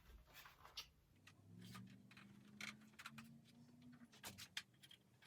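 Near silence with faint, scattered clicks and taps of ring light parts being handled during assembly.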